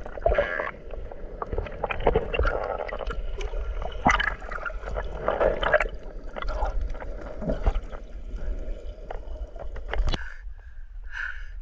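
Water gurgling and churning heard from under water, a muffled low rumble with scattered knocks and bumps around a net full of fish. About ten seconds in, the camera breaks the surface and the underwater rumble cuts off sharply.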